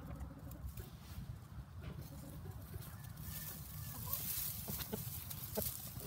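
Chickens foraging in dry grass, a few short, soft clucks in the second half over a steady low rumble.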